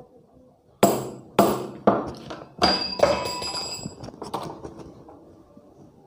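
A hammer striking metal again and again, driving a worn steel shaft out of a table fan's rotor. There are about eight sharp blows over the first four and a half seconds, and the loudest come about a second in. One blow near the middle leaves a short metallic ring.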